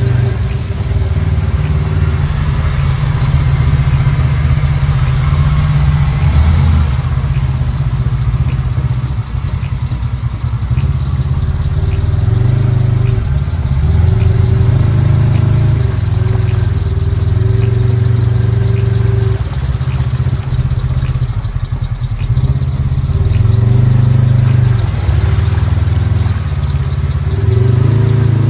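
Off-road vehicle engine running close by while driving a muddy trail, its revs rising and easing every few seconds as it works through mud and water.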